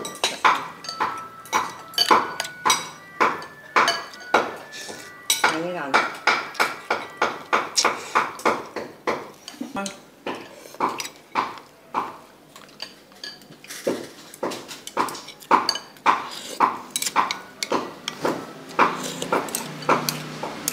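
Metal fork and spoon clinking and scraping against a ceramic bowl of noodles in broth, many quick clinks, some with a brief ring.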